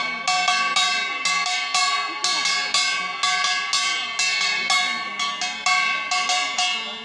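Metal puja bell rung in a steady run of strikes, about two to three a second, each one ringing on into the next.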